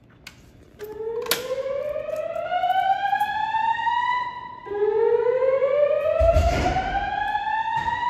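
Fire alarm speakers of a Notifier 3030 system sounding a whoop tone: two rising sweeps, each climbing for about three and a half seconds. A low bump about six seconds in and a few sharp clicks sound beside it.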